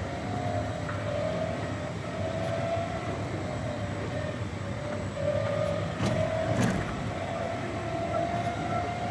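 A motor running steadily close by, a slightly wavering whine over a low rumble, with a couple of brief knocks about six seconds in.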